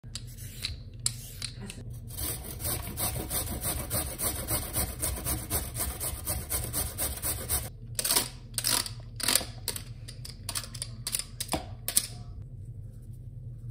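Cucumber being grated on a stainless-steel box grater: fast rasping strokes, about three a second. After about eight seconds it turns to slower, separate scrapes, and it stops shortly before the end.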